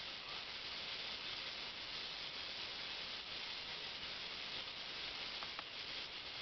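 Steady high hiss at an even level, with two faint clicks about five and a half seconds in.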